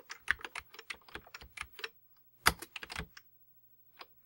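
Typing on a Commodore 128D's detached keyboard. A quick run of key clicks is followed by two louder keystrokes about halfway through, a pause, and one last keystroke near the end.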